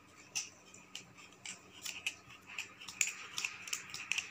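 Silk embroidery thread being wound by hand around a piece of cardboard: a run of short, irregular scratchy rasps, several a second, as the thread drags over the card.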